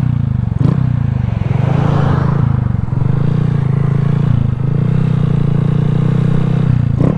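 Honda Grom's 125 cc single-cylinder four-stroke engine running under way, with wind noise around the rider's helmet. The engine note dips briefly a few times as the throttle eases off.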